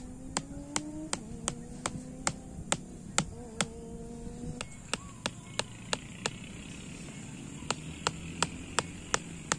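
Rubber mallet striking metal hook tent pegs into grassy ground: a steady run of sharp taps, about two and a half a second, stopping about six seconds in, then a second run of taps on the next peg.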